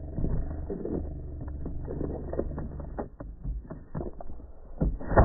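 A border collie running along an agility plank toward a phone mounted on the board: many quick knocks of its feet on the board, and the board rattling, over a low rumble. There is a loud knock near the end.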